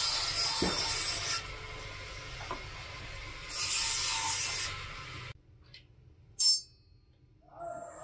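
Wood being worked by hand with an abrasive tool: two long scraping strokes, the first ending about a second and a half in and the second running for about a second in the middle, with lighter rubbing between them. Near the end comes a single sharp click, the loudest sound.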